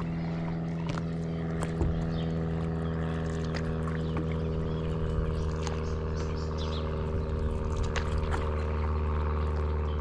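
Steady hum of a motor running at constant speed, with light water splashes and drips over it.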